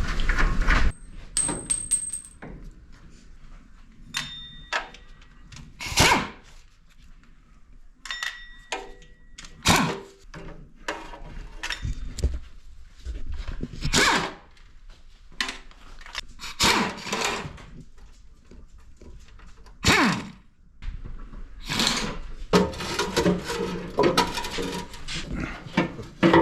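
Scattered metallic clanks and knocks of hand tools working on the underside of a car, a few ringing briefly, with a busier run of knocks near the end.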